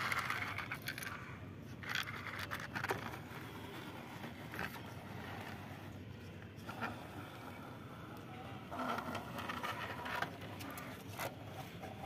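A small plastic toy scooter pushed by hand across concrete and onto a wooden truck bed: its plastic wheels and body scrape and rattle, with scattered light clicks and knocks.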